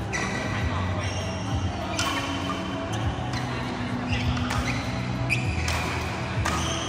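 Badminton rally: sharp racket hits on the shuttlecock about once a second, with short high squeaks of court shoes on the floor between them.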